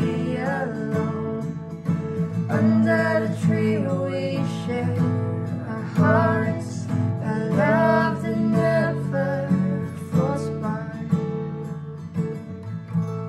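Credits song with strummed acoustic guitar and a singing voice, gradually growing quieter toward the end.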